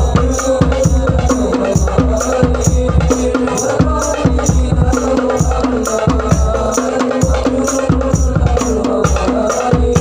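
Instrumental passage of devotional sholawat group music: a fast, even beat of hand percussion with rattling, jingling percussion over sustained held tones, without singing.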